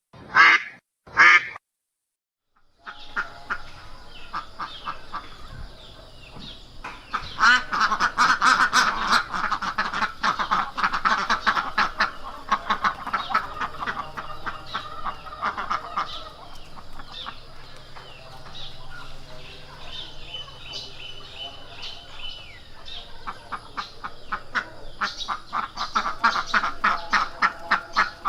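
Two loud single duck quacks, a short silence, then a flock of ducks quacking continuously in fast overlapping runs, busiest in the middle and near the end.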